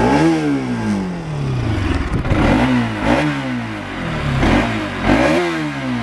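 Bajaj Pulsar RS200's single-cylinder engine, breathing through its stock air filter, revved in quick throttle blips: about five times the pitch jumps up and glides back down toward idle.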